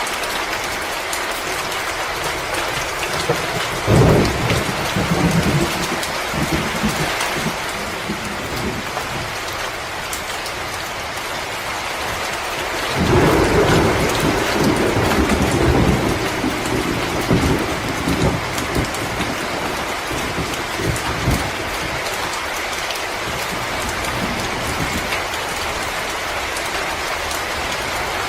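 Steady hissing ambience with fine crackle, broken by deep low rumbles: one about four seconds in and a longer one starting about thirteen seconds in.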